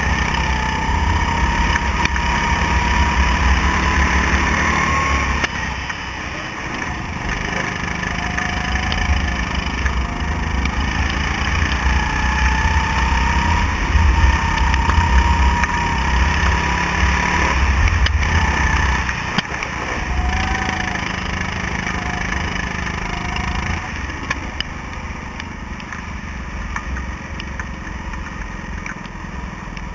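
Go-kart engine running hard, heard from the kart's own seat, its pitch rising and falling with the throttle through the corners. It eases off briefly twice, about six and about nineteen seconds in.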